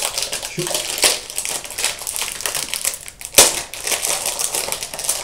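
Plastic packaging crinkling and crackling as a trading-card deck box is unwrapped and opened, with one sharp snap about three and a half seconds in.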